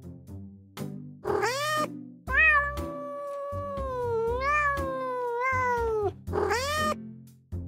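Domestic cat meowing three times: a short meow, a long drawn-out wavering meow of about four seconds, then another short meow.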